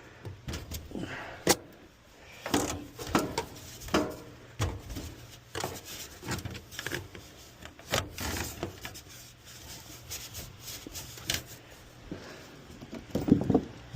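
Irregular clicks, knocks and scrapes of hands and tools working on metal parts while a leaking evaporator coil is worked free, over a faint steady low hum.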